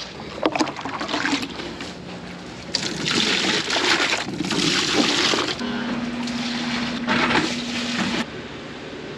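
A few knocks, then milk poured from a plastic jug and a bucket into the calves' feeding pails, in three long splashing pours. A steady low hum runs under the last pour.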